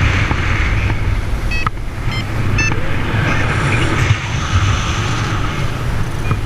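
Strong wind rushing and buffeting the microphone in flight, a steady low rumble. About a second and a half in come a few short high beeps, typical of a paragliding variometer signalling lift.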